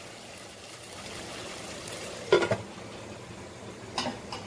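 Hot coal hissing and sizzling in a small foil cup where drops of oil have just been put on it to smoke the chicken. A metal pot lid clanks down onto the pot a little past halfway, with a lighter knock near the end.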